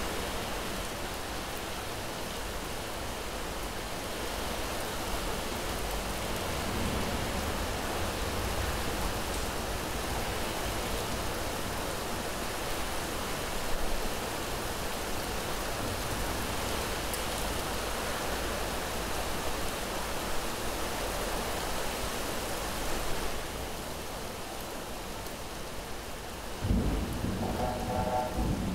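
Heavy rain falling steadily, with low rolling thunder. A louder thunder clap breaks in near the end.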